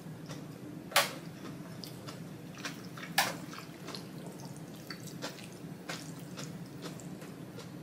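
Close-up wet eating sounds from thick ramen noodles: two sharp wet smacks about a second and three seconds in, then softer clicks and squelches as chopsticks and a spoon lift and stir the noodles.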